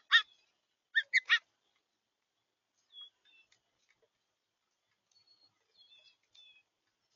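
Bird calls at a feeder: two loud, short, harsh chirps, then three more about a second in, followed by fainter thin, high notes from other birds.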